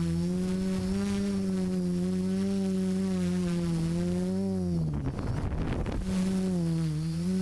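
FPV quadcopter's electric motors and propellers humming loudly, the pitch wavering up and down with the throttle. About five seconds in the pitch sinks and the hum breaks up into a rough rushing noise for about a second before climbing back to a steady hum.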